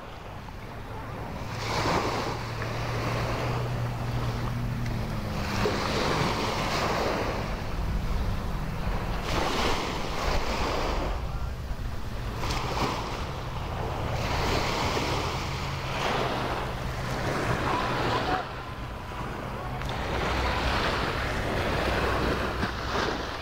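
Sea waves washing onto the beach, the rush swelling and falling back every few seconds, with wind buffeting the microphone. A low steady engine hum runs underneath.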